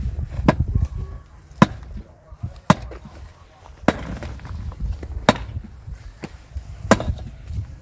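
Six sharp blows of a long-handled digging tool striking stones and hard ground, coming about every one to one and a half seconds.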